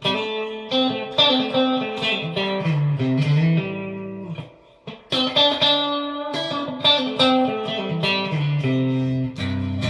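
Fender Player Series Stratocaster electric guitar played clean, with a little reverb, on the in-between neck-and-middle single-coil pickup setting. It plays a phrase of picked notes that dies away about four seconds in, then a second phrase starts about a second later.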